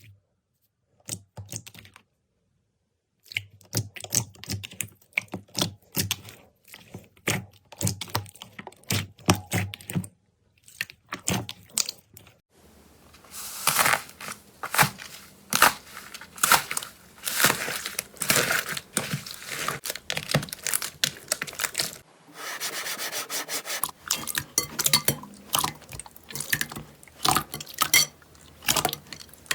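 Hands squishing and stretching slime, making dense popping and crackling clicks. About a third of the way in the crackling turns near-continuous, then breaks up again into separate pops.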